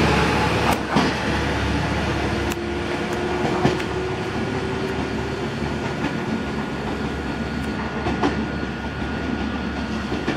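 HB-E300 series hybrid railcar running, heard from inside the car: a steady rumble of wheels on rail with a faint whine and a few sharp clicks over rail joints, easing slowly in loudness.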